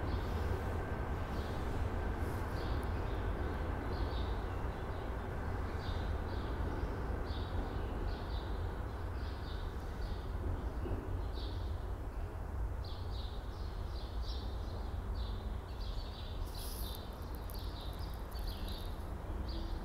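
Steady low rumble of a train shed with regional rail cars standing at the platforms, and small birds chirping in short, repeated calls over it. A brief high hiss comes in near the end.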